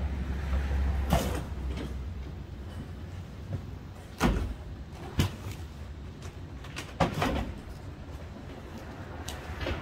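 Cardboard appliance boxes being shifted, dropped onto the trailer floor and stacked on metal hand carts: four sharp knocks spaced unevenly over a low rumble that is heaviest in the first second or so.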